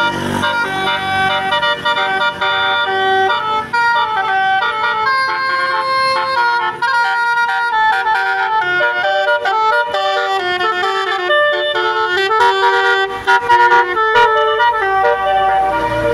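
Basuri multi-tone bus horn playing a 'telolet' melody: a long, loud run of quick stepping horn notes, often several sounding together.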